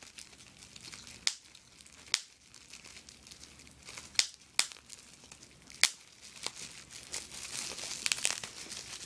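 Small-bubble wrap crinkling as fingers squeeze and twist it, with a few sharp pops spread out. The crinkling gets busier near the end. The bubbles are so tiny that they are hard to pop, so most squeezes only crinkle.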